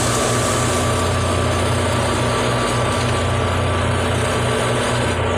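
An old Fiat 480 tractor's diesel engine running steadily under load, driving a thresher through its power take-off as pearl millet heads are fed in. The engine hum and the thresher's spinning drum blend into one steady, loud mechanical noise.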